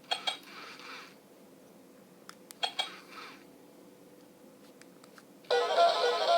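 Hasbro i-Cat robotic toy cat giving two short electronic sound bursts with a few sharp clicks, then starting to play plucked-string music about five seconds in.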